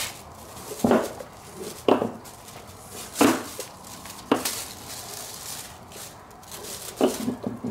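Handling noises as large catfish are shifted on a plastic sheet and a rope is pulled through their gills: about five short knocks and rustles, spaced roughly a second apart, with a longer gap before the last.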